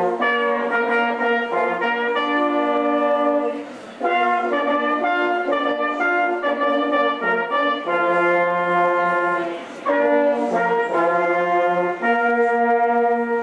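Ensemble of five hunting horns playing a tune in harmony, in phrases of held chords with brief breaks between them, dying away near the end.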